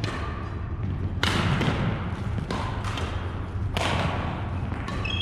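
Badminton rackets striking a shuttlecock in a rally, a sharp hit about every second and a quarter, each echoing briefly in a large gym. Short shoe squeaks on the wooden court come between the hits over a steady low hum.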